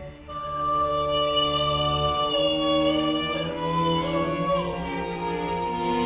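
Live classical music: a string ensemble with voices holding slow, sustained chords. The ensemble enters and swells about a quarter second in, then moves slowly from chord to chord.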